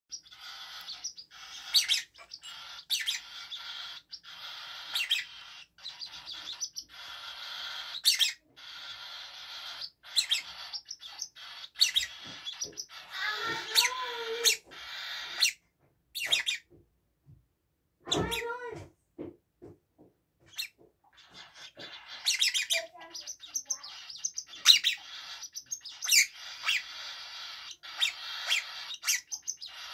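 Young pet parrots, a cockatiel and a red-rumped parrot, chirping in a cage in quick, repeated short calls. There is a brief pause a little past halfway, with a few lower calls around it.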